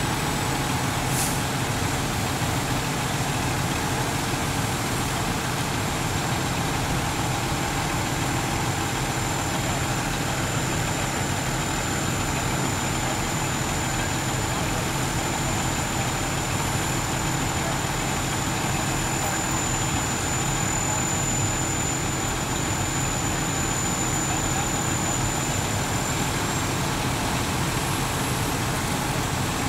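Fire engines' diesel engines running steadily, a constant low drone with a thin high whine over it.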